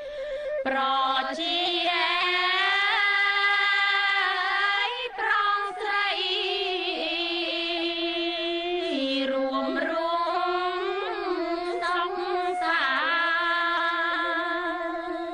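Music: a Khmer song, with a voice singing long drawn-out, wavering notes over instrumental backing.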